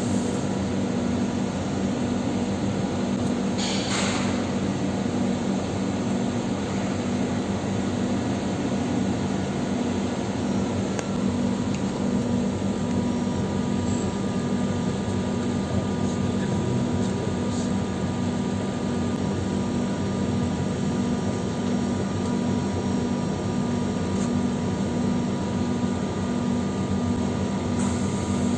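Steady machine hum with a fan-like rushing noise and a low droning tone that holds level throughout; a brief rustle about four seconds in.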